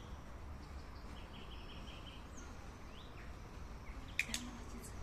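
Outdoor ambience: a faint steady low rumble with small birds chirping in short trills, and a couple of sharp high chirps about four seconds in.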